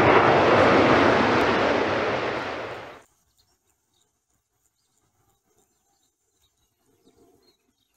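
Loud rumbling noise of a jet airliner's engines passing, fading away over about three seconds, then near silence.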